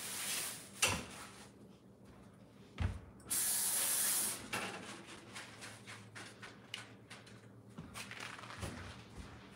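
Kitchen tap spraying water in one short burst, about a second long, a few seconds in. A few light knocks of handling come before it.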